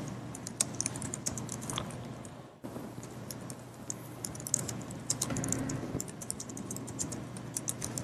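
Typing on laptop keyboards: light, irregular key clicks over a faint steady room hum, with a brief dropout to silence about two and a half seconds in.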